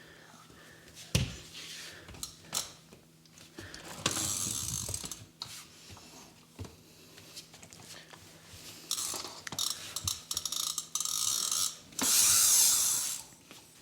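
Toy car's wheels and gears whirring and rattling in several bursts as it is run along, with a few sharp clicks; the longest and loudest burst comes near the end.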